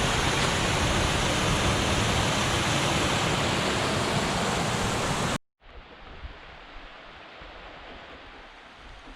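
Waterfall rushing loudly, a dense steady roar of falling water that cuts off abruptly a little past halfway. A much quieter, even rush of water follows.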